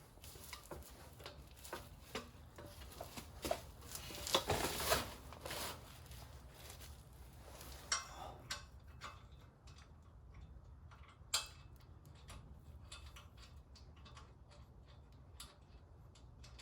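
Hard parts being handled and set against each other: scattered clicks, taps and knocks, with a burst of scraping and rustling about four to five seconds in and two sharper single clacks later on.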